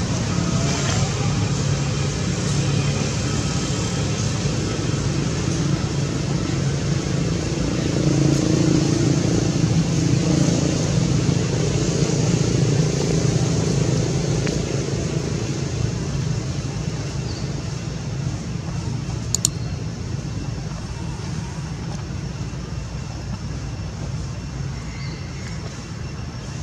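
Steady low rumble of a motor vehicle engine, growing louder in the middle and fading toward the end, with one sharp click about nineteen seconds in.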